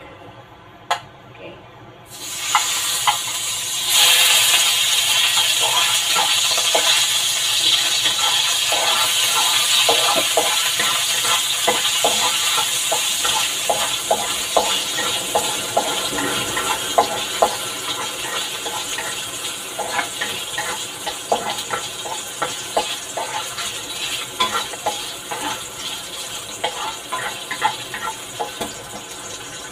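Cubes of pork fat sizzling in a hot stainless-steel wok as they render. The hiss starts about two seconds in, grows louder a couple of seconds later and then slowly dies down, with the spatula clicking and scraping against the pan as the fat is stirred.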